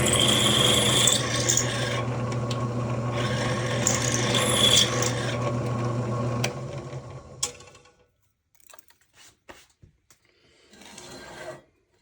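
Bench-top drill press running, its bit cutting into a solid aluminium hand wheel with a steady motor hum and a scraping, rasping cut. The motor switches off about six and a half seconds in and winds down, followed by a few light clicks.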